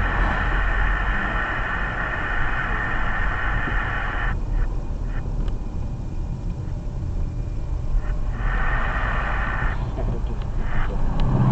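Road and engine noise heard from inside a car's cabin as it drives and slows onto a gravel shoulder: a steady low rumble with a higher hiss that drops out about four seconds in, and scattered small clicks.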